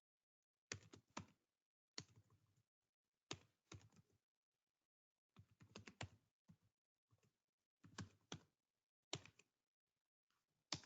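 Computer keyboard typing, faint, in short runs of keystrokes with brief pauses between them.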